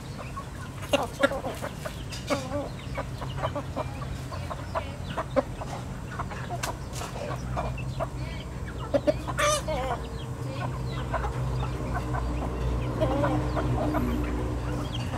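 A flock of chickens clucking and calling in short, repeated notes while pecking at feed. A steady low hum runs underneath and grows louder in the second half.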